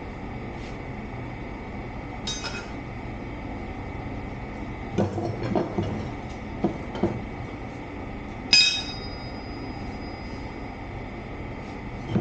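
Metal tools clinking and knocking on a skid steer tire's steel wheel while an inner tube is worked in. There are a few knocks around the middle, then one sharp metallic clink that rings on briefly, over a steady background hum.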